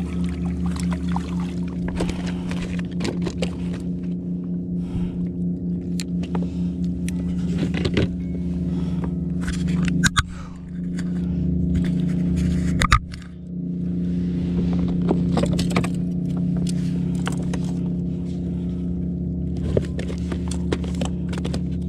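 Scraping, rustling and clicking of a freshly caught tautog and a measuring ruler being handled in the lap on a kayak, with sharper knocks about ten, thirteen and twenty seconds in. Under it runs a steady low droning hum of several tones.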